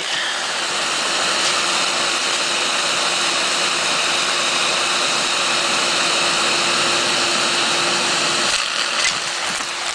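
Vacuum cleaner motor running steadily with a high whine, sucking up the tape from a cassette; the sound wavers and dips briefly near the end.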